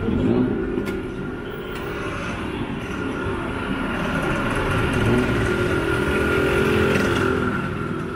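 Street traffic: motor vehicles passing, getting louder to a peak about five to seven seconds in, with a steady high whine running throughout.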